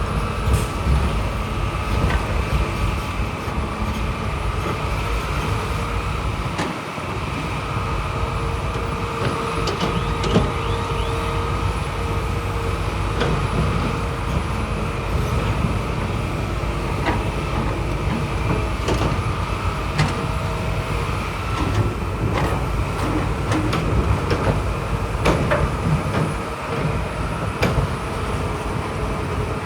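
Crawler bulldozer's diesel engine running steadily under load, with a steady whine and scattered metallic clanks and squeaks from the tracks and the rocks being pushed.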